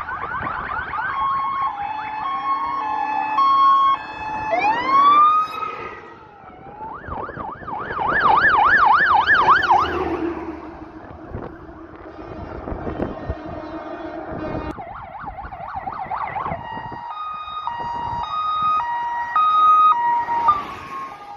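Sirens of fire-service vehicles passing one after another on an emergency call: a two-tone hi-lo call, wails sweeping upward, and a fast yelp from about seven to ten seconds in, then the two-tone call again near the end.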